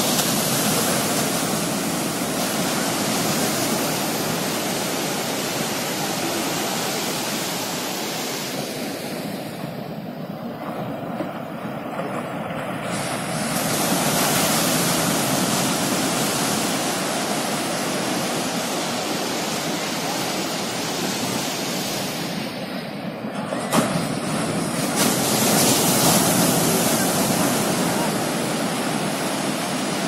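Ocean surf breaking and washing up a sandy beach: a steady rushing wash that swells louder twice, about halfway through and again near the end, with one sharp click a little before the second swell.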